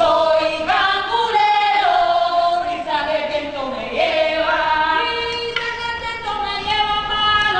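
A chorus of women's voices singing a chant together, holding and bending long notes.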